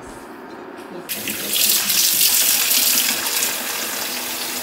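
Kitchen tap turned on about a second in, its stream of water splashing into a glass bowl in a stainless-steel sink. It is loudest at first, then settles to a steady run.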